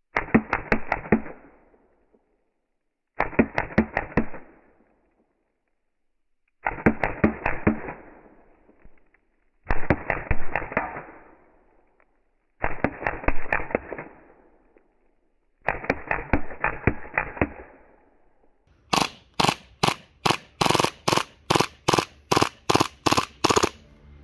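Action Army AAP01 gas-blowback airsoft pistol firing full-auto bursts, played back slowed down. Six short bursts of rapid, dull cracks come one after another, and over the last five seconds a run of sharper single cracks follows at about three a second.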